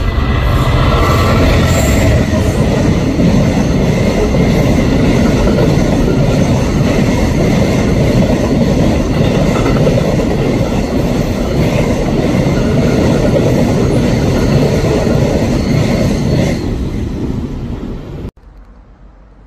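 Class 66 diesel freight locomotive, with its EMD two-stroke engine, running close past at the start, followed by a long train of steel-coil wagons rolling by on the rails. The sound eases near the end, then cuts off suddenly.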